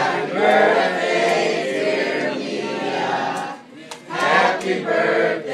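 A group of people singing together, many voices holding notes, with a short pause about three and a half seconds in.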